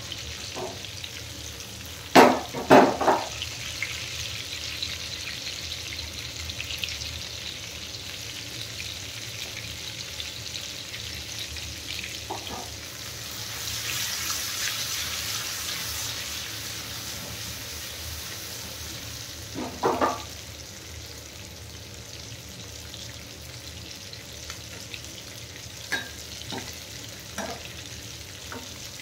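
Whole round gourds (tinde) and onions sizzling in mustard oil in a steel frying pan, a steady hiss that swells for a few seconds about halfway through as flames flare up at the pan. A few metal clatters against the pan, the loudest about two seconds in and another about twenty seconds in.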